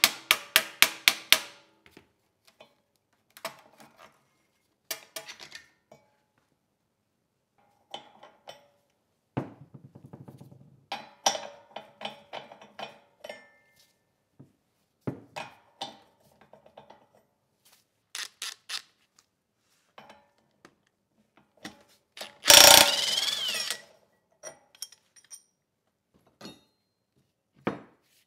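Hand ratchet clicking quickly, about ten clicks a second, as a fastener is turned on a small engine; then scattered clicks and knocks of metal tools and parts being handled. About three-quarters of the way through, a power tool runs once for about a second and a half.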